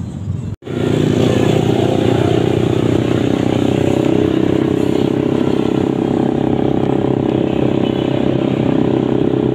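Motorcycle engine running steadily while riding, mixed with wind rushing over the microphone; it starts just after a short break about half a second in.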